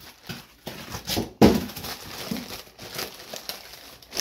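Plastic wrapping crinkling and rustling as a cast-iron part is unwrapped by hand, with a sharp knock about one and a half seconds in.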